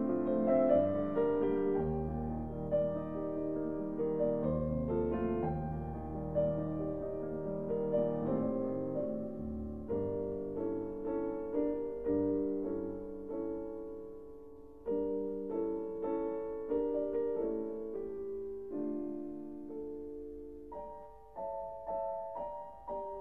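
Background piano music, slow and gentle, with held notes and chords.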